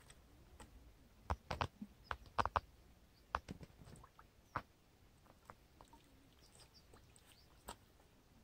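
Irregular, faint sharp clicks and taps of a plastic bottle being handled and stones shifting at a rocky water's edge, bunched and loudest in the first half, then sparser.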